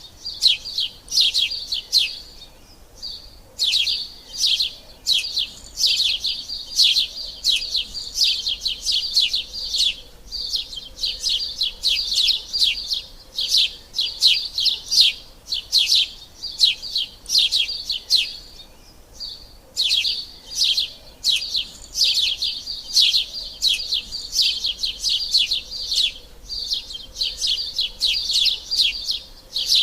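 Sparrows chirping: a rapid, continuous string of short high chirps with a few brief pauses.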